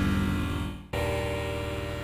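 Novation Circuit Tracks synthesizer sounding patches from its sound pack. A held chord fades out just under a second in, and a new sustained chord starts right after.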